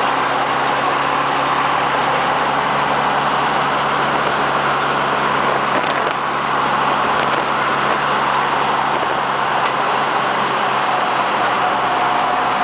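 Steady engine and road noise of a military vehicle driving along, heard from its cab.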